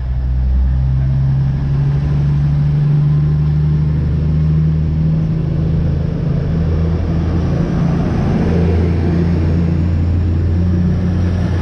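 Steady low drone of a diesel train engine running, a deep hum with a few held low tones that shift slightly in level.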